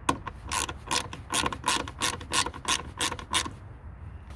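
Socket ratchet clicking in quick, even strokes as it tightens the 8 mm headlight mounting bolts, stopping about three and a half seconds in.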